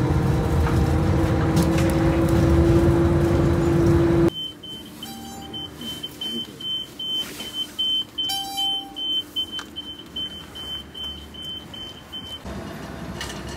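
Inside a city bus: engine and road noise with a rising whine. It cuts off about four seconds in to a high, rapidly pulsing electronic beep lasting about eight seconds, with two short lower beeps from the fare card reader during it.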